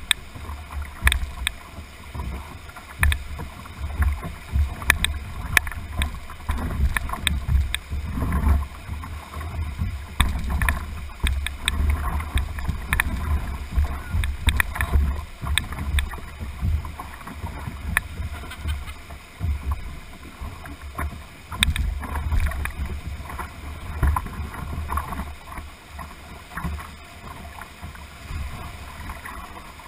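Whitewater rapids rushing around a canoe's hull, with water splashing against the covered deck. A low, uneven rumble surges and fades, and frequent sharp clicks and knocks are scattered throughout.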